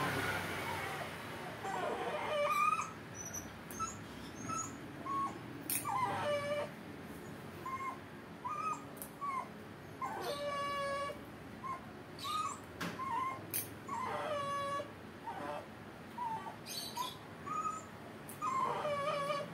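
Puppy whimpering and whining in short high cries, with a couple of longer drawn-out whines, while its freshly cropped ear is being stitched.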